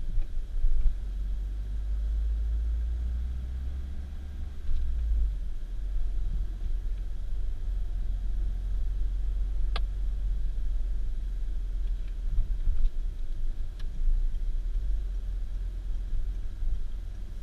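Car driving: a steady low rumble of engine and road noise, with a sharp click about ten seconds in.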